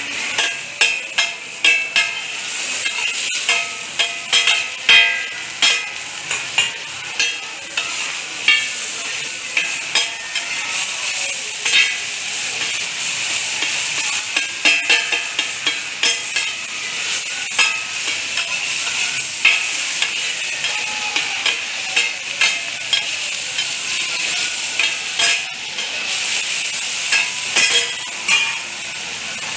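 Oyster omelette frying in a hot oiled pan, a steady sizzle throughout, with frequent clicks and scrapes of a spatula turning and chopping it against the pan.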